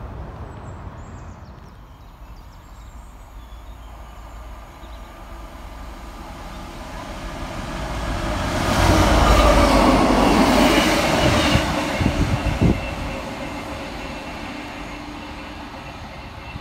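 DB Cargo Class 66 diesel locomotives, their two-stroke V12 engines running, passing through at speed. The sound swells to a loud peak as they go by, with a few sharp wheel clanks near the end of the pass, then fades away.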